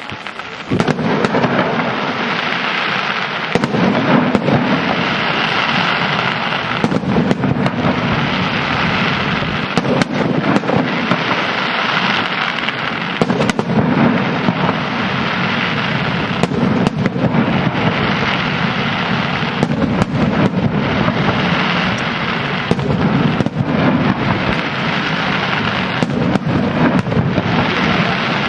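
Dense, continuous fireworks barrage from a 'simulated village fire' display. Rapid crackling and bangs merge into one steady din that starts about a second in and rises and falls in waves.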